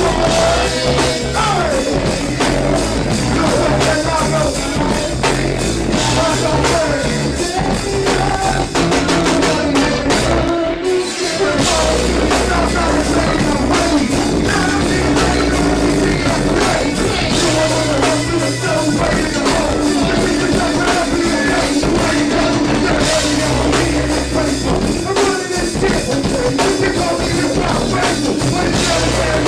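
Live go-go band playing a steady drum-and-bass groove, with a vocalist singing over it. The band drops out for a moment about eleven seconds in, then comes back in.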